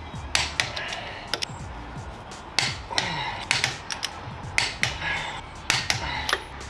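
A long-handled socket wrench tightening a wheel's lug nuts: sharp metallic clicks, often in pairs, about a dozen in all, over background music.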